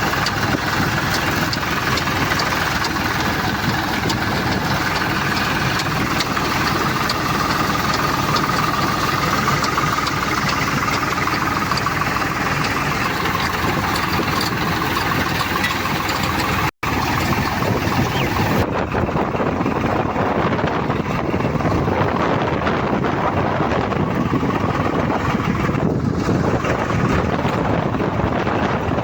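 Swaraj 735 FE tractor's diesel engine running steadily, cutting briefly about 17 seconds in and sounding duller after that.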